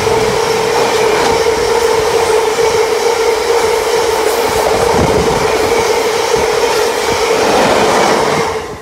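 A long freight train of bogie covered hopper wagons rolling past close by, its wheels running on the rails with a steady ringing tone over the noise. The sound drops away suddenly near the end as the last wagon passes.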